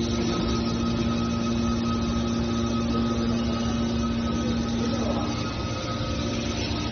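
Scrap metal baling machine running, its hydraulic power unit giving a steady machinery hum with a constant whine; the lower part of the hum drops away about five seconds in.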